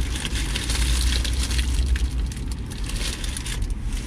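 Paper burger wrappers crinkling and rustling in hand as the burgers are handled and unwrapped, a dense irregular crackle over a steady low hum.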